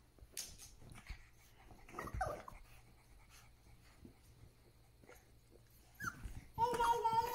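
Cocker spaniel puppy whimpering softly as it scuffles on a blanket. Near the end a long, steady, high whine starts, the loudest sound here.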